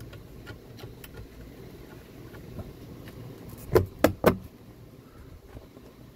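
Faint metallic clicks and handling noise as a nut is spun by hand onto a steel 3/8-16 all-thread rod being pushed through a golf cart roof bracket, with three quick knocks close together about four seconds in.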